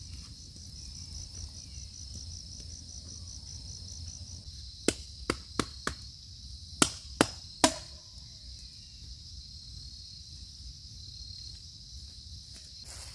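Crickets chirring steadily in a high band. About five to eight seconds in come seven sharp knocks, a quick group of four and then three.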